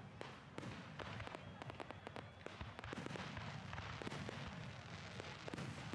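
Fireworks display: aerial shells bursting, with a dense, irregular run of crackling pops and bangs.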